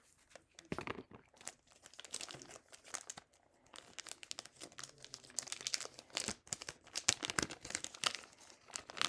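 Plastic packaging crinkling and tearing in the hands as a speed cube is unwrapped, in a dense run of irregular crackles that thickens in the second half.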